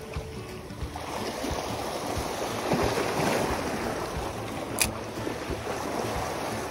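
Small sea waves washing and splashing over the rocks of a stone breakwater. A single sharp click sounds about three-quarters of the way through.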